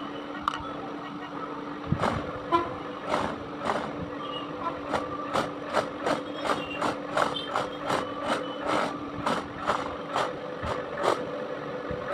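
Toy RC stunt car running on a tabletop: a steady hum, joined from about two seconds in by a quick series of sharp clicks or taps, about two to three a second.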